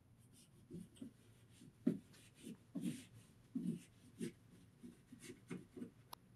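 Fabric being pushed and tucked into the edge channel of an acoustical wall-panel frame by hand and with a plastic tucking tool. It makes faint, irregular rubbing and scraping sounds, a dozen or so short strokes.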